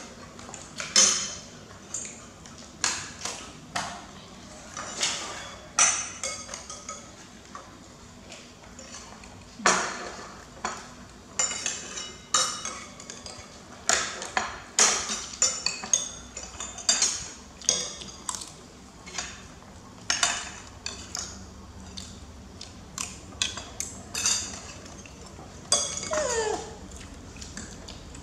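Metal spoons clinking and scraping against ceramic plates and bowls: many sharp, irregular clinks as food is served. Near the end there is a short squeal that falls in pitch.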